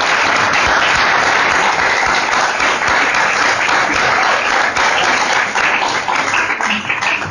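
Audience applauding, a dense patter of clapping that starts abruptly and thins out near the end.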